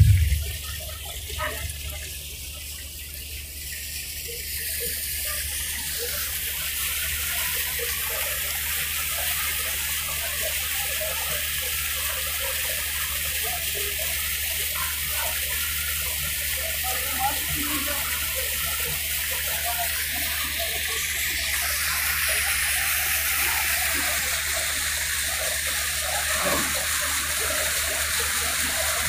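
Water rushing along the hull of a moving riverboat, a steady hiss that swells twice, over the low, steady drone of the boat's engine.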